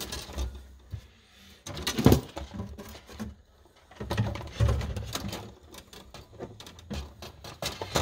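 Handling noise from electrical wiring work: wires being pushed into a plastic outlet box, with scattered clicks and knocks and a sharper knock about two seconds in.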